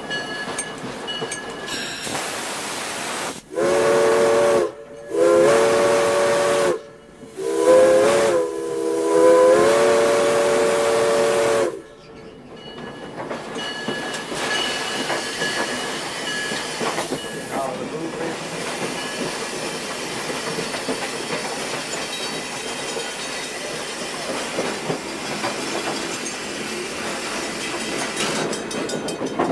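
Steam locomotive's chime whistle sounding a chord in four blasts, long, long, short, long: the standard grade-crossing signal. A steady hiss of steam and the running train surrounds it.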